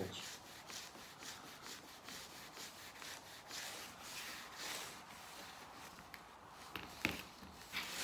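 Cloth rubbing metal polish onto a brass door handle by hand: repeated soft, scratchy strokes. A couple of light knocks come near the end.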